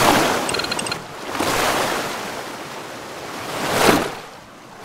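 Whoosh sound effects of an animated logo sting: a rush of noise swells and falls away several times, the last building to a peak just before the end. A brief glittering chime comes about half a second in.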